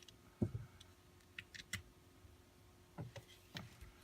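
Faint, scattered light clicks and taps, about half a dozen, from a small screw being undone and holster parts being handled.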